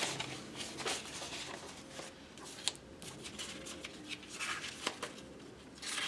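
Sheets of paper stickers rustling and sliding against each other as they are picked up and leafed through, in a string of short, uneven crackles.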